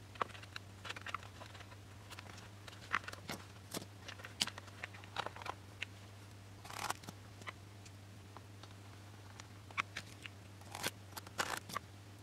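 Scattered small clicks, taps and rustles of hands handling a plastic servo, its wire lead and small tools on a workbench, with longer scraping rustles about seven and eleven seconds in. A faint low hum runs underneath.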